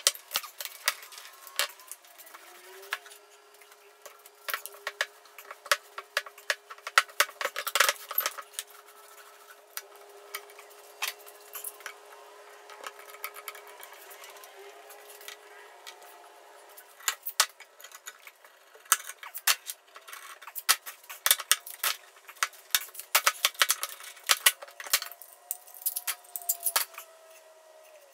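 Bar clamps being set and tightened: rapid ratcheting clicks and metal clinks in irregular bursts, with light knocks of the clamps against the wooden board.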